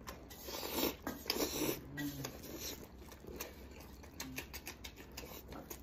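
Close-miked eating: a man sucking and chewing tender braised lamb from his fingers, with wet smacking and slurping noises that are loudest in the first two seconds. A short hum about two seconds in, then fainter chewing clicks.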